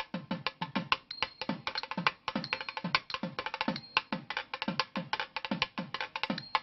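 Fast hand-drum percussion music: dense, sharp strikes with low drum tones that drop in pitch, a couple each second.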